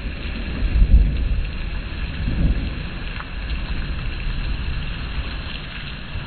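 Heavy rain pouring down in a strong wind, a dense steady hiss. Low rumbling swells from the wind gusts come about a second in and again near two and a half seconds.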